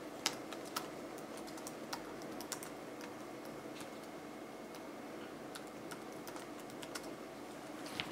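Typing on a computer keyboard: scattered, irregular key clicks over a faint steady hum.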